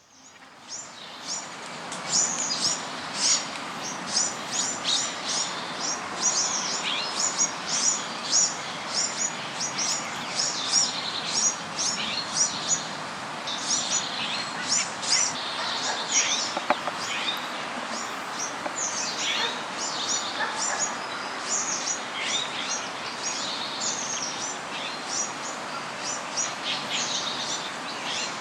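Birds chirping steadily, with many short, high chirps in quick succession over a steady background of noise. The sound fades in over the first couple of seconds.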